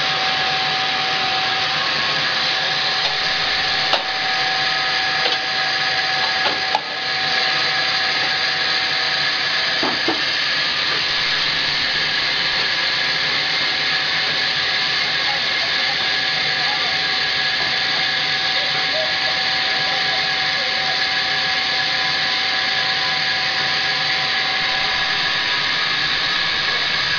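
Sawmill saw running steadily as it cuts lengthwise through a log, a continuous loud hissing whine with a few knocks in the first several seconds.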